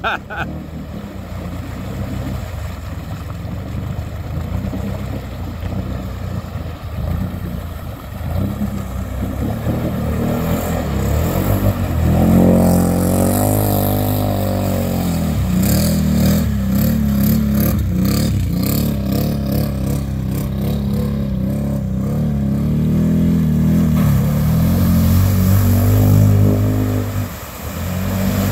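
Can-Am Outlander 850 XMR ATV's V-twin engine running under throttle through mud, revving up partway through and held at high revs, with a quick run of sharp knocks midway and a brief drop in the throttle near the end.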